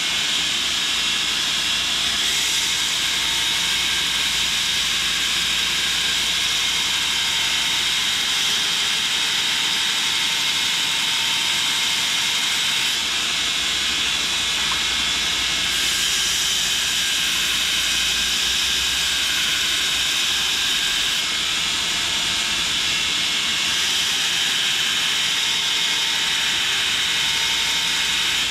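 Belt grinder running with a steel knife blade held against its 240-grit compact-grain belt to grind the bevels: a steady, loud hiss of abrasive on steel over the machine's running.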